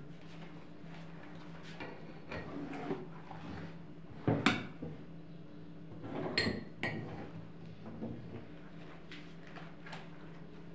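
Risen dough being cut into small pieces: scattered light knocks and clinks of a kitchen utensil against a dish or board, the loudest knock about four seconds in and a ringing metallic clink a couple of seconds later, over a steady low hum.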